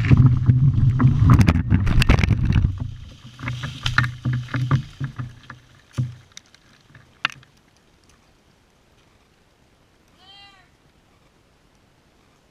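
A snag coming down after felling: cracking and snapping wood over a low rumble, dying away within about six seconds with a couple of last knocks. Then quiet, with one brief high call near the end.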